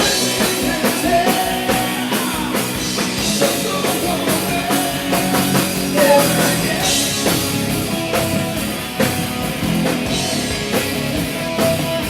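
Live rock band playing with drum kit and guitar, picked up by a camera's built-in microphone.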